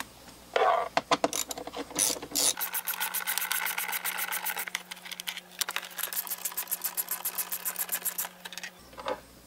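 Hand-turned ratcheting screwdriver backing out the screws under a pickup's door trim panel. First come a few knocks as the tool is seated, then about six seconds of rapid, even ratchet clicking, several clicks a second.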